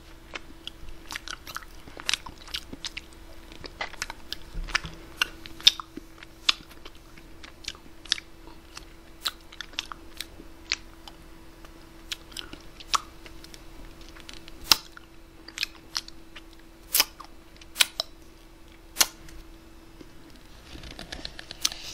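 Close-up mouth sounds of eating ice cream off a small plastic spoon: irregular sharp lip smacks and wet clicks, a few every couple of seconds, over a steady low hum.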